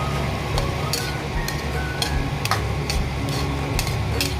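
A cooking utensil clicking and scraping against a pan while chicken in sauce is stirred, in irregular sharp taps. A steady low hum runs underneath.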